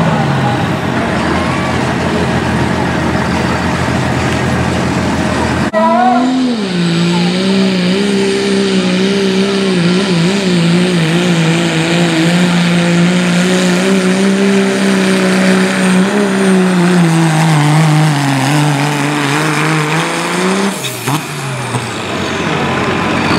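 Diesel 4x4 pickup making a sled pull: after a few seconds at the line, the engine comes on hard about six seconds in and holds high revs under full load, its pitch slowly sagging as the sled bogs it down, then drops off near the end when the pull stops.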